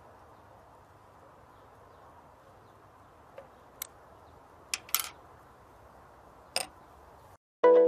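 A few small sharp clicks over faint hiss, as a small metal keychain tool is handled. Near the end, music starts loudly.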